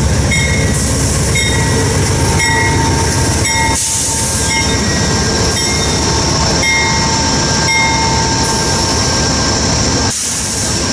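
Amtrak GE P42DC diesel locomotive passing close alongside the platform, its engine running loud, with its bell ringing about once a second and a thin steady squeal from the wheels.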